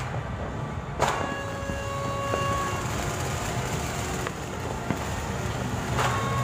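Fireworks exploding, one sharp bang about a second in and another near the end, over a steady rumble of city noise. Horns sound in held tones through the first half.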